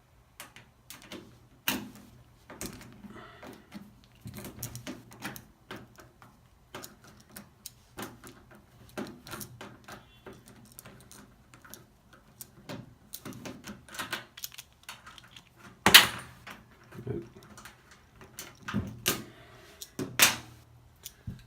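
Irregular small clicks, taps and knocks of screws being worked loose and handled on a washing machine's metal cabinet, with a sharp knock about sixteen seconds in and a few more near the end.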